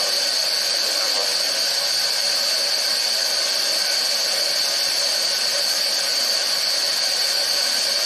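Pressurised gas hissing steadily at a rocket cold-flow test rig, with a constant high whistle over the hiss.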